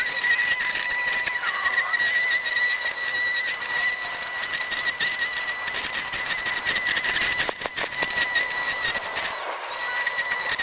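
An EGO battery-powered lawn tool's electric motor running with a steady high-pitched whine, over a crackling hiss as it cuts through overgrown grass and weeds; the whine dips briefly twice in the second half.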